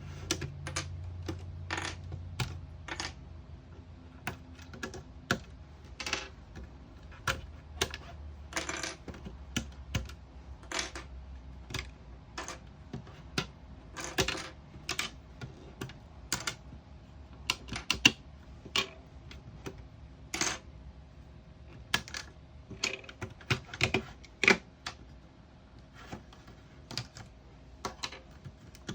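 Irregular sharp taps and clicks, about one to three a second and uneven in strength, from tapping that triggers the Snap Circuits sound IC's machine-gun sound effect. A faint steady hum runs underneath.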